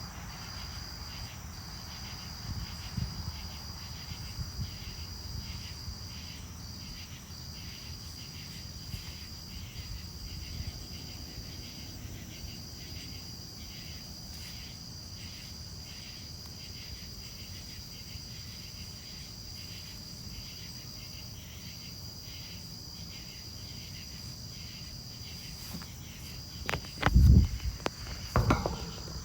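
Crickets chirping steadily at night: a continuous high trill with a fast pulsing chirp beneath it, over a low steady hum. A couple of loud bumps near the end.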